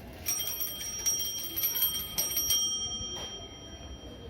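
A metal bell ringing rapidly and continuously, then stopping about three seconds in.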